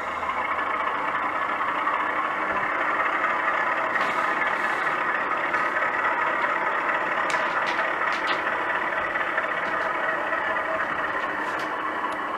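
Model Class 33 diesel locomotive's DCC sound decoder playing a steady diesel engine sound through the model's small speaker as the loco gets going, with a few faint clicks partway through.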